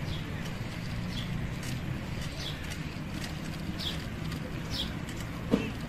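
Small birds chirping in the trees: short, high, falling chirps repeating every second or so over a steady low background hum. One brief sharp sound near the end is the loudest moment.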